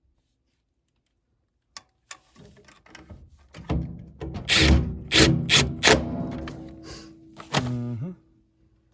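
A series of knocks and clunks from handling parts on a gas furnace, several loud ones in quick succession about halfway through, over a steady hum.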